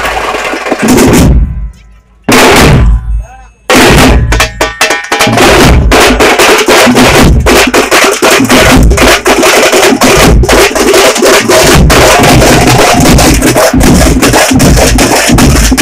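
Tamate frame drums beaten with sticks in a fast, loud rhythm. The drumming drops out briefly about a second and a half in and again near three seconds, then carries on without a break.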